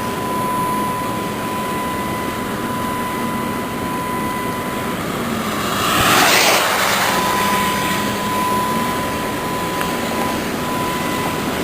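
Road and engine noise of a moving car, a steady rush with a low hum and a thin steady whine. The rushing swells louder about six seconds in, then fades back.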